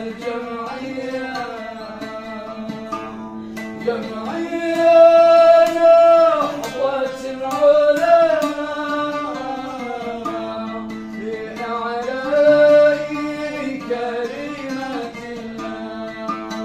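A man singing a shalawat, a devotional song in praise of the Prophet, in long held notes that bend and slide in pitch, over a string instrument sustaining steady notes beneath.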